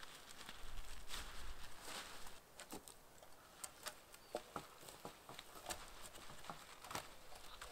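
Rustling and irregular light snapping of dry twigs and branches, a few swishes early on followed by scattered sharp cracks.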